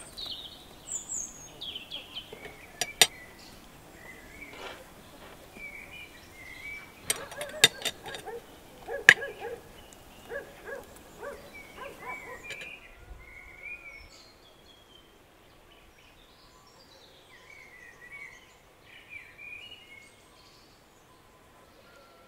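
Birds chirping now and then. Sharp clicks and knocks come in the first half, the loudest around eight to nine seconds in, and after that only the birdsong is left over a quiet background.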